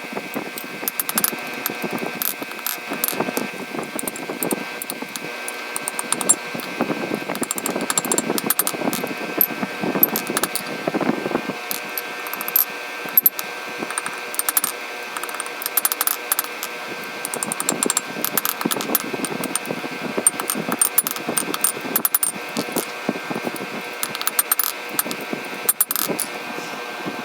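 Steel being worked at the anvil: irregular light hammer taps and metallic clinks with a bright ring, several a second, over a steady hiss.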